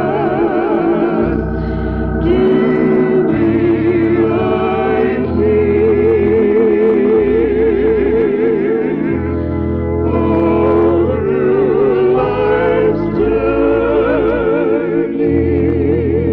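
Gospel music: singing with strong vibrato over sustained organ chords, the bass notes changing every second or two.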